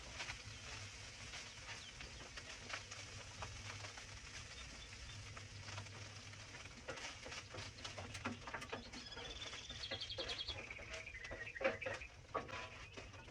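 Birds calling, with a rapid trill of high notes about ten seconds in. Beneath them are scattered light clicks and a low steady hum.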